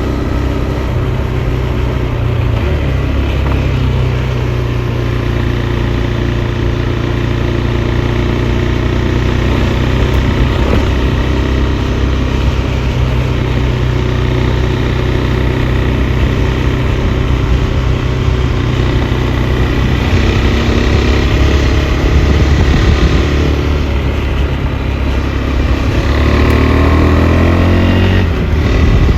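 KTM 390 Adventure's single-cylinder engine running under way at a mostly steady cruising speed. The pitch steps a few times, and the revs fall and rise in the last few seconds.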